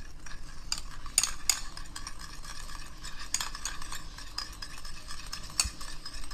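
Metal spoon stirring two spoonfuls of milk with powdered sugar in a small bowl, clicking and scraping against the sides in a quick, irregular run. This is the sugar being dissolved into a milk glaze.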